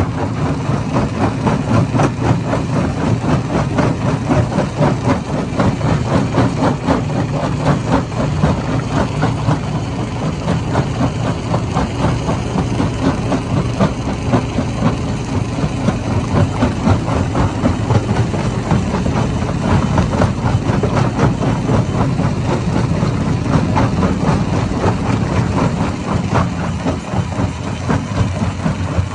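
Hammer stone crusher running steadily: a low, heavy machine hum under a dense, rapid clatter.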